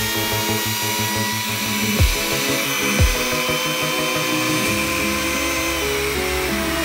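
A handheld trim router runs at high speed with a steady high whine as it routs a cured epoxy resin block, under background music with a steady beat. Two sharp thumps come about two and three seconds in.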